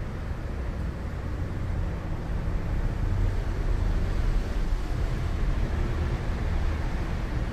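Steady low rumbling noise with no distinct events, swelling a little midway.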